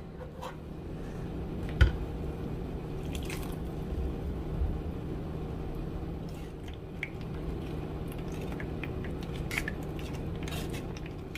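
Blended guajillo chile sauce being strained through a metal mesh sieve, a spoon working the wet purée and liquid dripping into a plastic bowl below, with one sharp knock about two seconds in. A steady low hum runs underneath.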